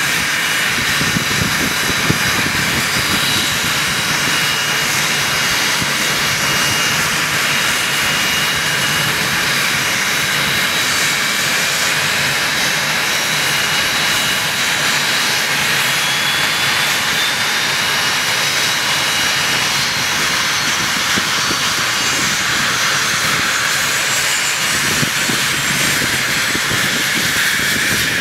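Twin Pratt & Whitney Canada PW545 turbofans of a Cessna Citation 560XLS business jet idling on the ground: a steady, loud jet rush with high whining tones that drift slightly in pitch.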